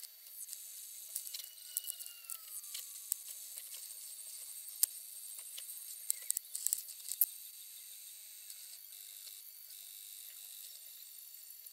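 Sped-up workbench handling sounds from hand assembly of robot parts: scattered small clicks and ticks over a high hiss, with a brief falling tone about two seconds in.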